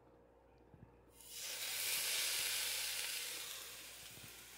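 Raw bone-in country-style pork rib sizzling as it is laid into a hot air fryer basket preheated to 400 degrees. A light tap of the metal tongs comes first; then the sizzle starts about a second in, swells, and slowly dies down.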